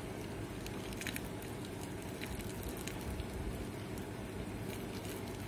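Freshly boiled water poured in a thin stream from a kettle onto cucumbers packed in a three-litre glass jar: a steady splashing trickle with a few faint clicks.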